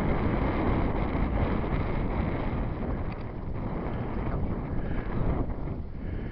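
Wind blowing across the microphone, a steady rushing rumble.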